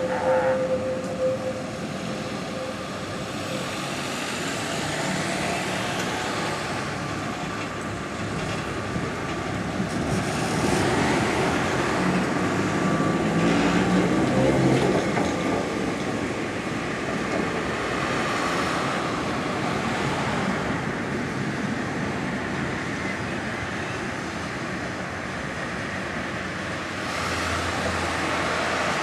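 Old electric tram with trailer cars passing close by on street track: a steady running noise of wheels on rails, swelling as the cars go past in the middle and then holding level.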